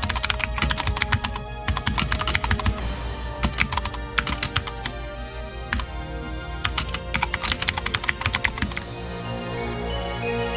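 Fast typing on a GMMK full-size mechanical keyboard with Gateron Brown switches and ABS keycaps: rapid clattering keystrokes in bursts, over background music. The typing stops about nine seconds in, leaving the music.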